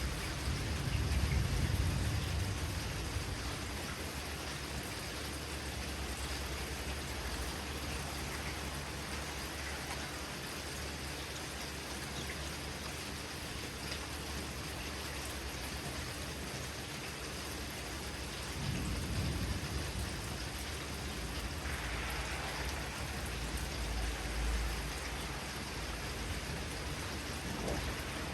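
Steady rain falling, with low rolling thunder rumbles near the start and again for several seconds from about two-thirds of the way in.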